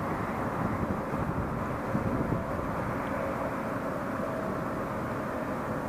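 Steady low rumble of road traffic on a highway bridge overhead.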